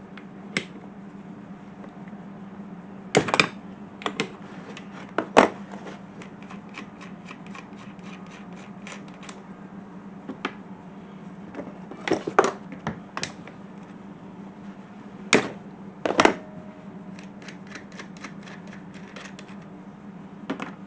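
Metal hand tools clicking and knocking against truck parts as a part is loosened and taken off: scattered sharp knocks, several louder ones, and runs of quick light ticks, over a steady low hum.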